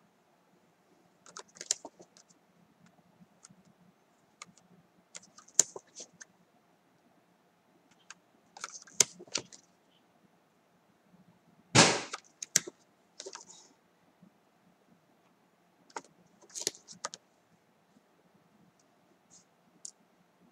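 Paper flash cards being handled and swapped: short rustles and light clicks every few seconds, with one sharper knock about halfway through.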